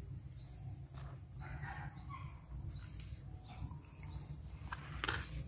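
A small bird chirping over and over in short, high, rising chirps, about one or two a second, over a low steady hum. Light rustling of cloth and handling, with a soft knock near the end.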